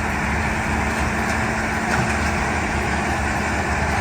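Heavy machine engine running steadily, a constant low rumble with a steady hum and a rushing noise over it.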